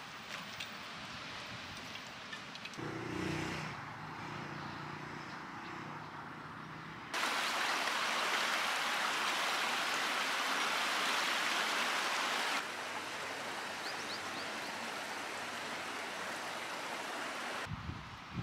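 A small rocky stream tumbling down a little cascade: steady rushing water, the loudest sound, for about five seconds in the middle. Before it come faint footsteps with trekking-pole taps and then a low steady hum, and after it quieter open-air ambience.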